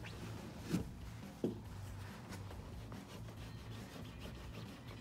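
A towel-wrapped plastic body panel removal tool rubbing and knocking against a Dodge Challenger's plastic rear spoiler and trunk lid as it is wobbled to loosen the spoiler's double-sided tape. There are two short knocks within the first second and a half, over a low steady hum.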